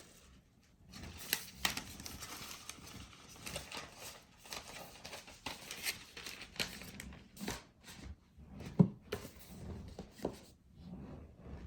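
Packaging being handled: irregular crinkling and rustling of paper or plastic wrapping, with scattered clicks and light taps.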